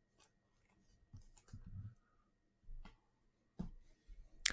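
Trading cards being handled: a few faint soft taps and small clicks, with one sharper click near the end.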